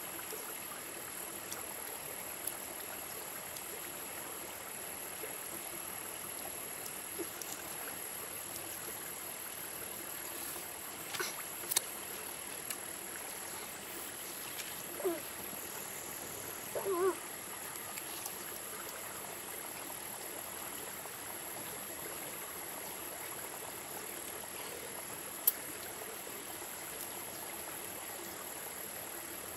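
Stream water running steadily, with a few short knocks and two brief pitched calls about halfway through.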